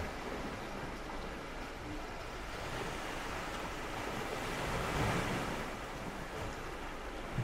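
Sea waves washing onto a beach, a steady rushing with some wind that swells about five seconds in.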